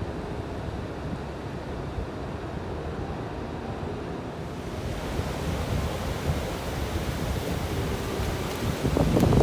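Pacific Ocean surf washing steadily on the beach, with wind buffeting the microphone; the hiss of the surf builds about halfway through, and a louder gust of wind rumbles near the end.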